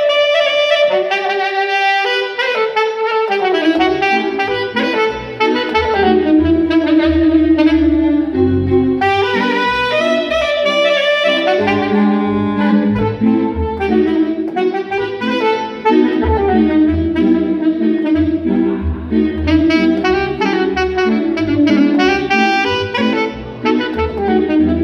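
Saxophone playing a continuous melody of moving, ornamented notes, over an accompaniment with a pulsing bass line that comes in about four seconds in.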